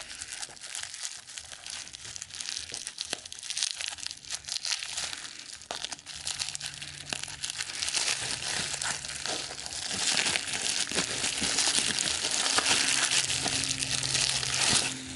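Plastic packaging crinkling and rustling as it is handled, growing louder through the second half and stopping abruptly at the end.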